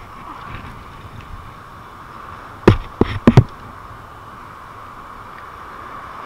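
Four sharp knocks in quick succession about two and a half seconds in, over a steady background hiss.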